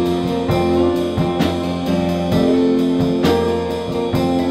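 Acoustic band playing an instrumental passage of a country-blues song, with strummed guitar chords.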